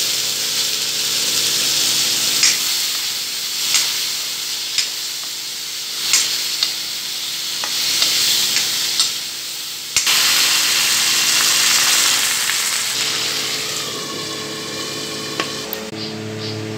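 Potato cubes sizzling in hot oil in a kadai with curry leaves, stirred with a steel ladle that clicks and scrapes against the pan every second or so. The sizzling eases near the end.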